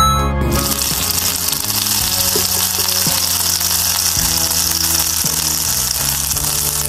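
Background music with a steady bass line, over a dense hissing sizzle that starts about half a second in: hot, freshly air-fried chicken pieces and their drippings sizzling in a foil-lined air fryer basket.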